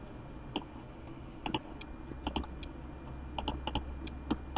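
Scattered clicks of a computer mouse and keyboard, some coming in quick pairs, with about a dozen in all.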